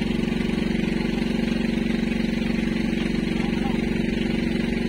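A small engine idling steadily, with an even, rapid pulse.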